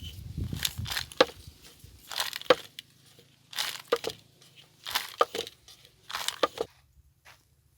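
Short bursts of crunching and crackling, about one a second, each with a sharp click or two.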